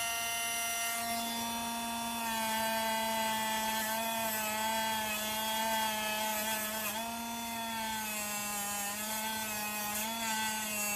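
Small high-speed rotary tool running steadily with a high whine, buffing a diecast metal bumper and headlights with a Scotch-Brite pad. Its pitch wavers and dips slightly as the pad is pressed against the metal.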